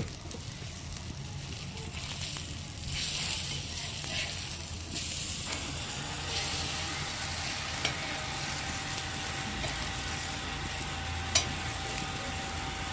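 Fish frying in oil on a dosa griddle, a steady sizzle, with one sharp click near the end.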